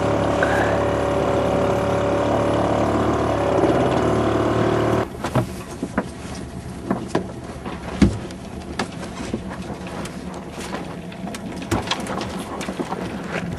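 A small sailing boat's engine running steadily, stopping abruptly about five seconds in; after that, scattered knocks and clicks of gear being handled on deck.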